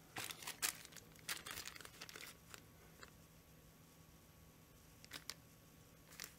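A plastic parts bag crinkling as it is picked up and handled: a run of crackles in the first two and a half seconds, then a few more near the end.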